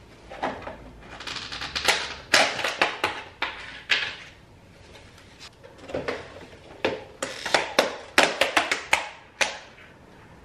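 A paper takeout bag rustling and plastic takeout containers clacking as they are lifted out and set down on a wooden countertop: irregular clicks and rustles, busiest about two seconds in and again around eight to nine seconds.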